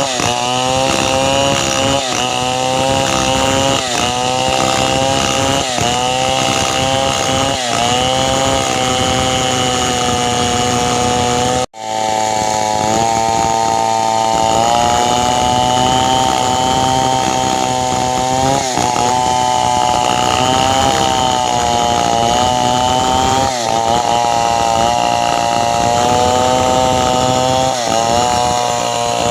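Two-stroke chainsaw running at high speed and cutting wood, its engine note dipping briefly every couple of seconds as the chain bites and then picking up again. The sound cuts out suddenly for a moment about twelve seconds in, then resumes.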